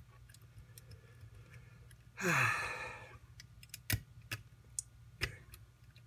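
Small scattered clicks of a lock pick and tension wrench working the pins of a pin-tumbler lock, with three sharper clicks in the second half. About two seconds in, a person lets out a long sigh.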